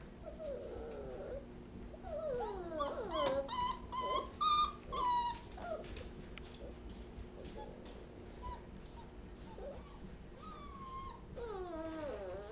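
Young puppies whining and squealing: a burst of high, sliding cries about two to six seconds in, a few fainter whimpers after, and another whine near the end.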